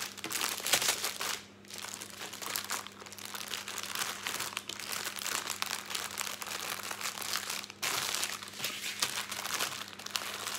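Clear plastic bags crinkling and rustling as they are handled and packed together, with a steady run of small crackles that pauses briefly twice.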